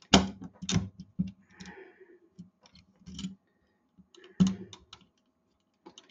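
Steel parts of a Colt 1911 pistol clicking and knocking as the tight-fitting barrel bushing is worked onto the slide. There are several sharp clicks in the first second or so, a brief scrape, and a louder knock about four and a half seconds in.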